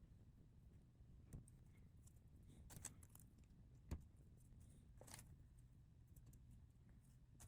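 Faint, scattered clicks and light rattling of small plastic LEGO pieces being handled, the sharpest click about four seconds in.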